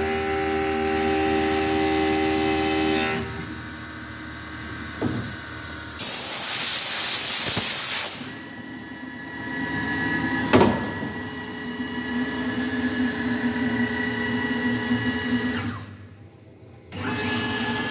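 CNC mill spindle running with a steady whine that stops about three seconds in. Then comes a loud two-second hiss of compressed air from a blow gun clearing chips, followed by a steady machine hum with one sharp click, which drops out briefly near the end.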